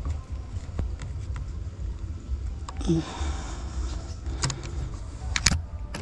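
Scattered sharp clicks and knocks of handling noise over a low steady rumble, with a short rustle about three seconds in and the loudest pair of clicks near the end.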